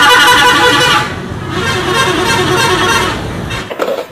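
Tour bus's multi-tone musical horn, the Indonesian 'telolet' type, sounding in two loud blasts. The first breaks off about a second in, and the second plays until shortly before the end, over low engine rumble.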